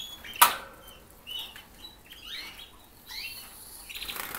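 A sharp knock about half a second in as the plastic nest cup is handled, then a run of short, high, squeaky canary chirps.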